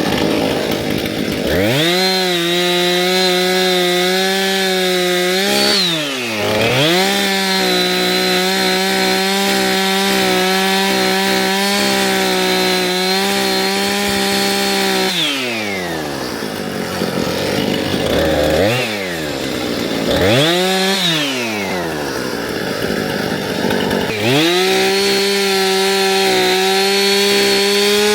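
Small gas engine of a handheld landscaping power tool, such as a string trimmer or edger, revved to full throttle and held there, then dropped back toward idle. It holds full throttle for about four seconds, dips briefly, then runs at full throttle for about eight more seconds. It falls to idle, gets two short revs, and goes back to full throttle near the end.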